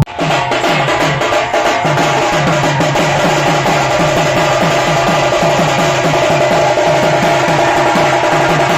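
Background music with a steady drum beat, about four low drum strokes a second over a dense layer of other instruments, with no singing; it starts abruptly as the previous song cuts off.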